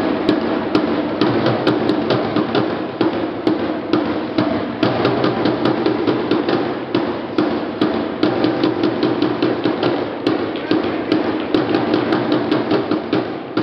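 Rapid, irregular knocking and banging, several sharp strikes a second, over a steady low hum.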